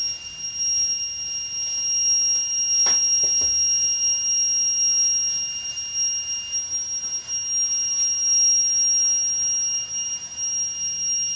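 Continuous high-pitched electronic alarm tone, a steady piezo-type buzzer with no breaks, over a faint hiss. A single knock about three seconds in.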